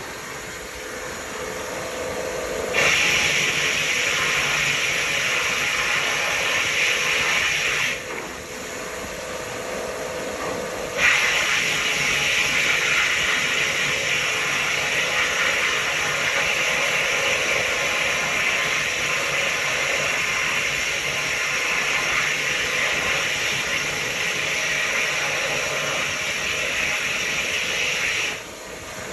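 Vapor hone blast gun spraying a water-and-abrasive slurry with compressed air onto a generator carburetor: a loud steady hiss that starts about three seconds in, stops for about three seconds, then runs again until just before the end. A softer hiss goes on through the pauses.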